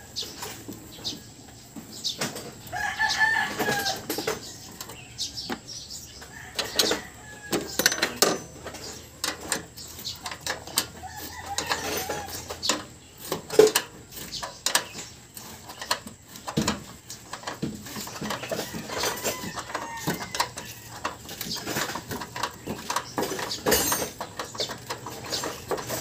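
A rooster crows once about two and a half seconds in, over scattered metallic clicks and knocks from hand tools working bolts at the vehicle's hinge.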